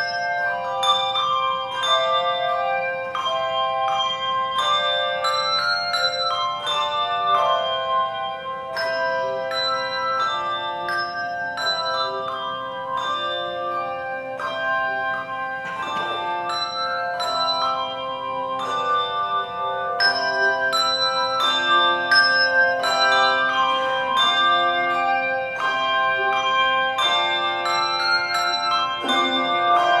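Handbell choir playing: many handbells struck in quick overlapping notes and chords, each ringing on, with lower bells joining about a third of the way in.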